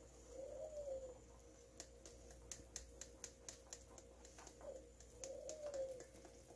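Faint tapping and clicking of a whisk against the sides of a nonstick saucepan as a thick white sauce is stirred, several clicks a second. Twice a soft squeaky tone rises and falls.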